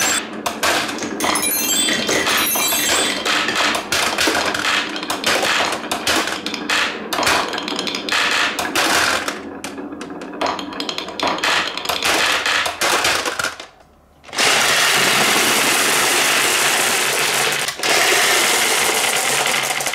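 Many glass marbles clicking and clattering as they drop into a toy gacha capsule machine and pile up on each other. After a brief lull about fourteen seconds in, a dense continuous rattle follows as the dial is turned and the marbles pour out of the dispenser chute all at once.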